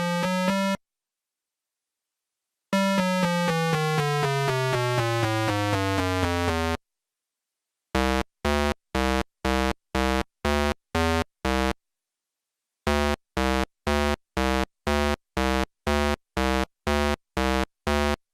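Synthesized cartoon sound effects: a rising tone that cuts off, a long falling tone, then runs of short repeated beeps at about two a second, with silent gaps in between.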